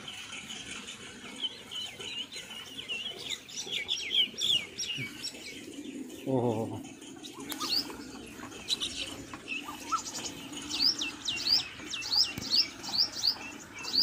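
A flock of small birds chirping and tweeting in quick, repeated notes, with one short, low, wavering call from a larger bird about six seconds in.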